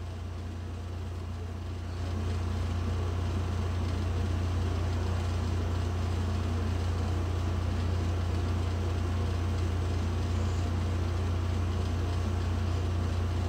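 A steady low hum with a faint hiss above it, getting a little louder about two seconds in.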